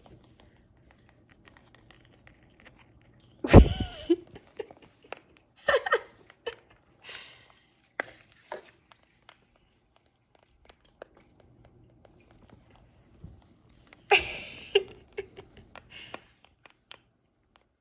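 Parrot's beak clicking and tapping in quick small strokes as it bites and mouths at a snail, with a few short, louder voice sounds about three and a half, six and fourteen seconds in.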